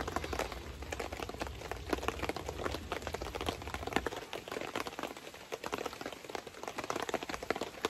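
Rain falling on a fabric camping tarp overhead: a dense, irregular patter of drops. A low rumble runs underneath and stops about four seconds in.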